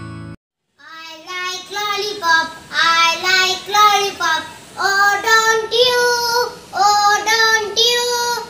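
A young boy singing a short tune in phrases with several held notes. The last notes of a chiming jingle cut off just at the start.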